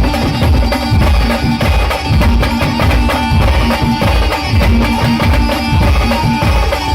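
Band music in pawari style: a steady, loud drum beat under a short melody of held notes that repeats.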